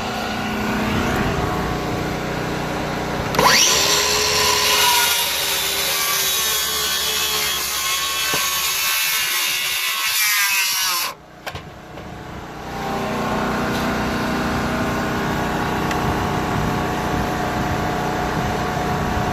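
Power saw cutting wood. A loud, high-pitched cut starts about three and a half seconds in with a brief rise in pitch, then stops abruptly a little past halfway. A lower steady running sound picks up again shortly after.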